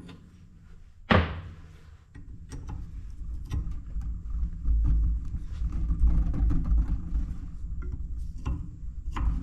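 Hand tools working on an old two-way hydraulic valve to take off its bracket: one sharp metallic clank about a second in, then low knocking and handling noise with scattered small clicks.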